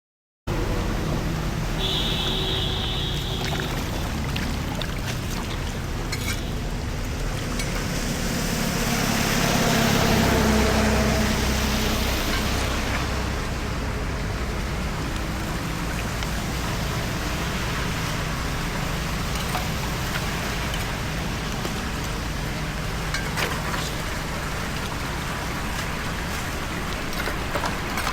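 Floodwater rushing steadily into a cleared storm drain, a constant wash of water noise. A deeper hum swells and fades about ten seconds in.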